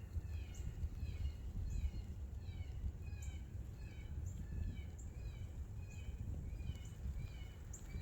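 Birds chirping rapidly and continuously, many short falling notes overlapping, over a steady low rumble of wind on the microphone.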